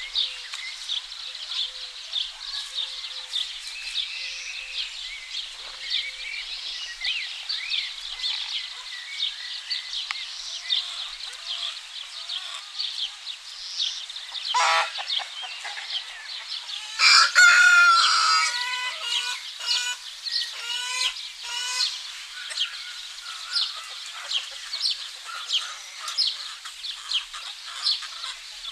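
A rooster crows once, loudly, about two-thirds of the way in, among hens clucking. Small songbirds chirp steadily throughout.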